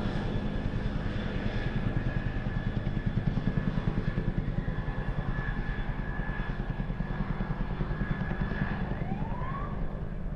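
Helicopter hovering: the main rotor blades give a fast, steady chopping throb with a steady whine above it. About nine seconds in, a siren starts up with rising wails.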